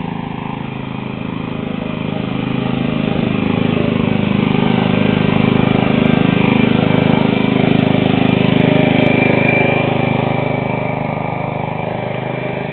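Engine of a Craftsman riding lawn mower running steadily. It grows louder from about two seconds in and eases off again near the end.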